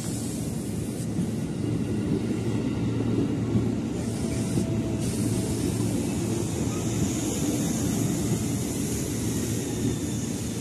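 JR 205 series electric commuter train cars moving past along the platform, with a steady low rumble of wheels and running gear.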